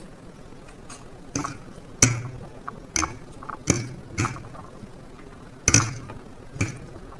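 Utensils knocking and scraping against a bowl as noodles are mixed with their sauce: about seven irregular sharp clinks, the loudest about two seconds in and near the end.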